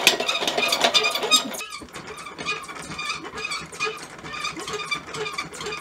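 Treadle-driven spinning wheel running: a Singer sewing-machine treadle turning a 3D-printed flyer and bobbin, with a regular, repeating mechanical squeak. The sound is louder for the first second and a half, then softer.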